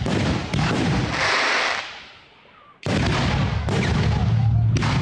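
Aerial fireworks shells bursting in a string of sharp booms, with a hissing crackle between them. The sound dies away a little after two seconds in, then cuts back in suddenly with more bursts.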